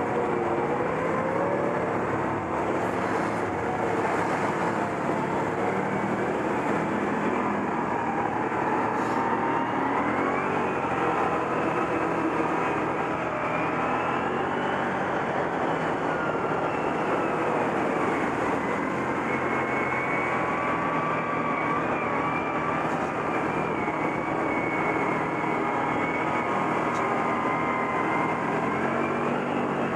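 ATV engine running under way on a ride, its pitch rising and falling gently with the throttle.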